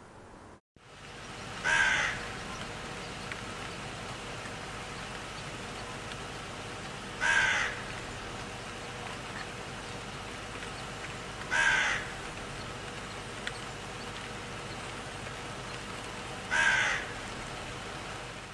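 An animal calling four times, one short call every four to five seconds, over a steady hiss.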